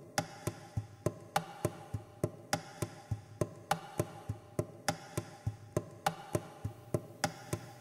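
Steady, even ticking, about three and a half clicks a second, over a faint held tone.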